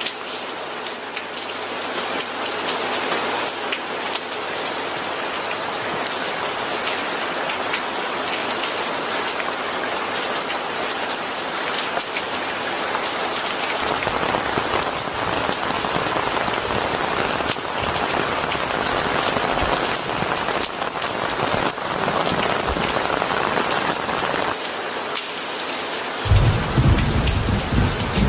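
Steady heavy rain, a dense hiss with many individual drops spattering on a surface. Near the end a low rumble of thunder comes in and grows louder.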